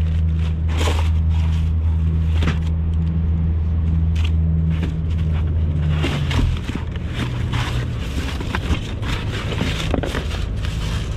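An engine idling with a steady low hum that cuts off about six and a half seconds in, under the scraping and rustling of items being rummaged through in a dumpster.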